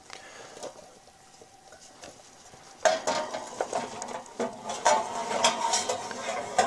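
Tin cans standing in an aluminium pie pan clinking and scraping as they are set onto a metal oven rack. Quiet at first, then a sharp knock about three seconds in and a run of metallic clatter and short rings.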